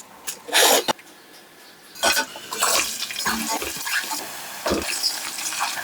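Water pouring and splashing into a cooking pot from about two seconds in, with a few sharp clinks of pots or utensils, as liquid is added to the chicken pulao.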